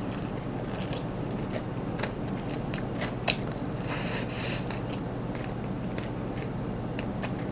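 Close-miked eating of fried chicken: biting and chewing meat off the bone, with scattered crisp clicks and wet smacks, over a faint steady hum.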